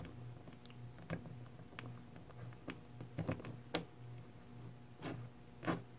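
Scattered faint clicks and taps of hard plastic as a Marvel Legends Spider-Man action figure is handled and its arm posed, over a low steady hum.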